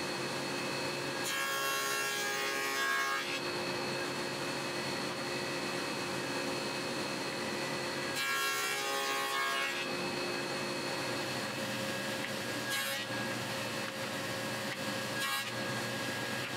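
SawStop table saw with a dado stack running steadily, cutting tenons in hardwood: two passes of cutting noise, each about two seconds long, about a second in and again about eight seconds in.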